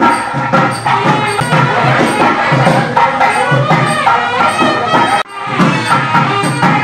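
Background music with a steady beat, briefly cutting out about five seconds in.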